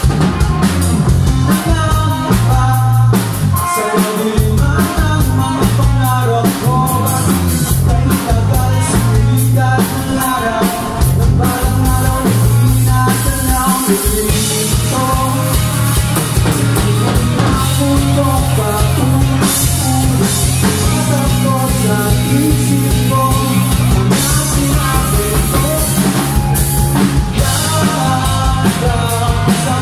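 Live rock band playing loudly: a Pearl drum kit keeping a steady beat under electric bass and two electric guitars.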